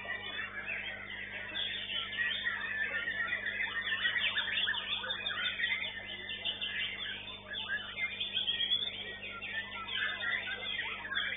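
White-rumped shama (murai batu) singing a fast, unbroken run of varied whistles, chatters and trills.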